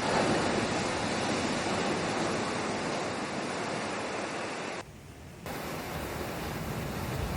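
Steady rush of moving water, like surf breaking on the shore. About two-thirds of the way through it drops out for half a second, then resumes.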